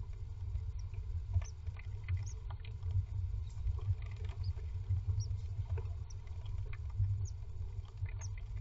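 Great tit moving on its nest of moss and wool inside a wooden nest box: scratchy rustling and small clicks from the nest material, with a few brief high peeps now and then over a steady low hum.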